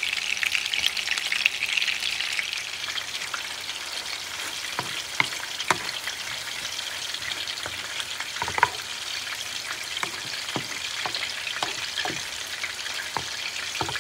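Hot olive oil sizzling in a non-stick frying pan, louder for the first couple of seconds, as meatballs and then a tomato and bell-pepper sauce fry. Scattered sharp pops and clicks sound through it while the sauce is stirred with a wooden spoon.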